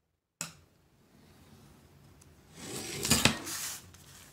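Handling noise of a metal square and a vinyl tile: a sharp click about half a second in, then a scraping rub with a light metallic clatter, loudest about three seconds in.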